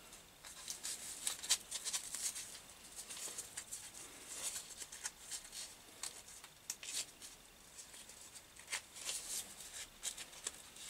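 Light handling noises: scattered small clicks, taps and rustles as small metal tooling is handled and set down at the mill/drill.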